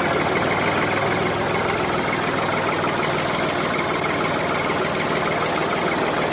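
Engine running steadily at a constant speed, with a fast, even chatter.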